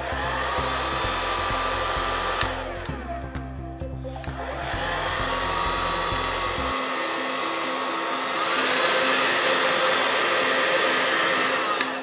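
Cadence Perfum SEC700 2000 W hand-held hair dryer blowing, its motor whine rising as it spins up. The pitch falls and rises again a few seconds in, steps up to a higher, louder speed past the middle as its buttons are pressed, and winds down near the end.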